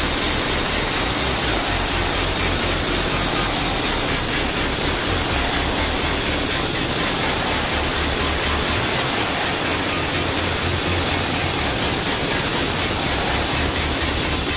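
Handheld angle grinder cutting a granite countertop slab, a steady, unbroken grinding noise that holds the same level throughout.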